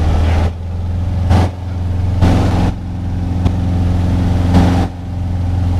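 Cessna 150's four-cylinder Continental O-200 engine and propeller running steadily, heard inside the cockpit. The deepest rumble eases about half a second in and comes back near the end, and there are three short bursts of hiss.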